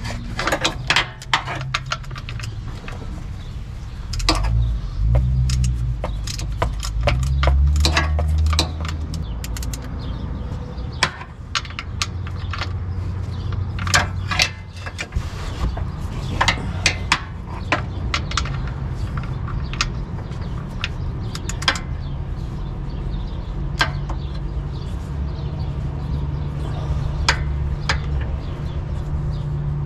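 Hand tools and metal parts clinking and knocking while working on a car's engine mounts: scattered sharp clicks and clanks at irregular intervals, over a steady low hum.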